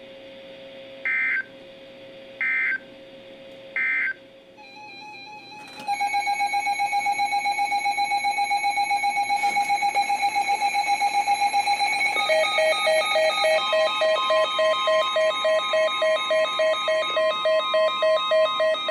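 Three short digital data bursts, the end-of-message tones of an Emergency Alert System broadcast. Then a synthesized electronic alert sound: a held chord of tones pulsing rapidly, changing about halfway through into beeps pulsing about twice a second.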